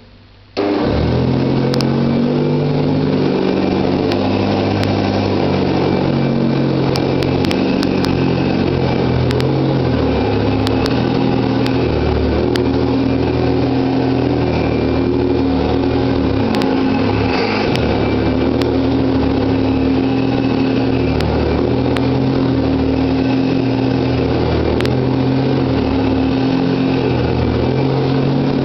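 Hoover Junior Deluxe U2068 upright vacuum cleaner starting up about half a second in, then running steadily. Its 350 W dirty-fan motor and beater-bar brush roll make a loud hum, with scattered sharp clicks of dirt being picked up.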